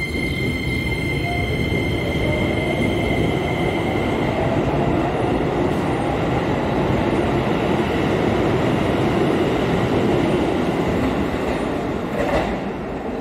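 Keisei stainless-steel commuter train pulling out of the station and running past close by, with a dense rumble of wheels on rail that builds as it gathers speed and a faint rising motor whine. A single sharp clank sounds near the end.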